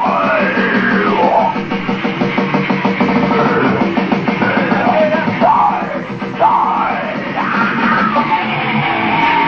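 Live rock jam: electric guitar playing with notes gliding up and down in pitch, over keyboard and a steady rhythm.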